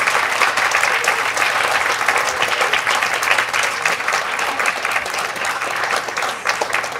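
A room full of guests applauding, dense steady clapping that eases off a little toward the end.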